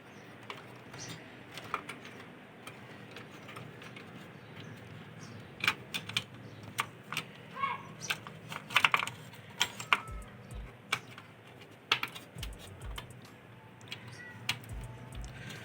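Irregular clicks and taps of wire connectors being plugged back onto the circuit boards inside an AV receiver, busiest in the middle, over a faint low hum.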